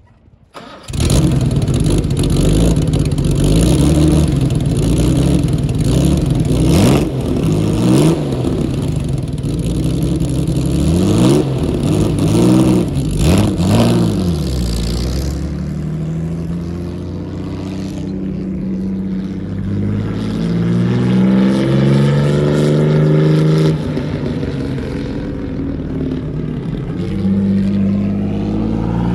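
1956 Jaguar D-Type's twin-cam inline-six racing engine on three Weber carburettors firing up about a second in, then blipped several times, revs rising and falling sharply. From about halfway it pulls away, the revs climbing in steps as it accelerates through the gears and rising again near the end.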